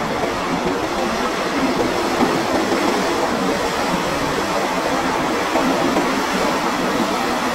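State Railway of Thailand passenger coaches rolling past a station platform: a steady running noise of steel wheels on the rails.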